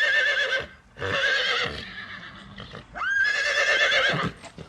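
Horse whinnying: three loud, high, quavering neighs. The first ends under a second in, the second comes about a second in, and the third starts about three seconds in.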